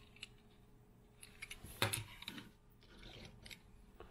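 Light clicks of small die-cast Matchbox cars being handled, put down and picked up, with one louder clack near the middle.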